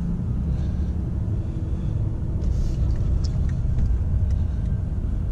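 Ram pickup truck driving at about 20–25 mph, heard from inside the cab: a steady low rumble of engine and road noise.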